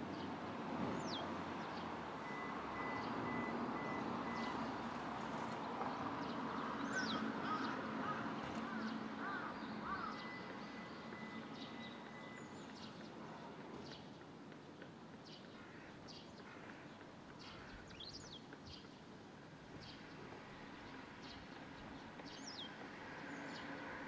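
Barn swallows giving short, thin, high chirps that sweep downward, scattered through, over a steady low background rumble that is louder in the first half.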